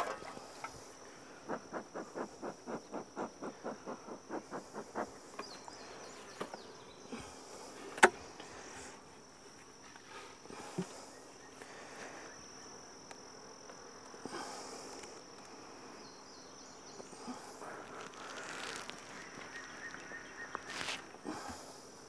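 Honey bees humming around an opened hive over a steady high insect trill from the grass. About a second and a half in, a bee smoker is puffed in a quick regular run for a few seconds, and a single sharp knock comes about eight seconds in.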